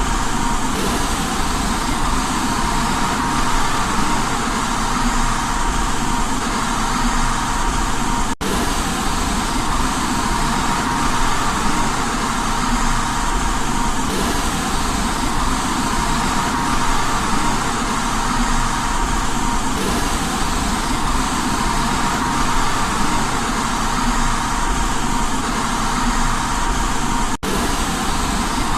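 Steady white noise for baby sleep: an even, continuous hiss with a faint steady hum in it. It drops out for an instant twice, about 8 and 27 seconds in.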